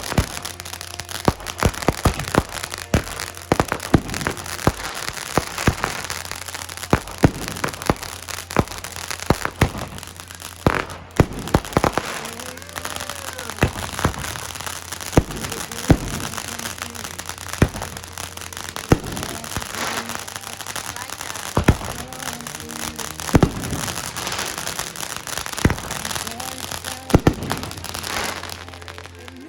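Consumer fireworks going off in quick succession, a dense run of sharp bangs and crackles several times a second, over background music.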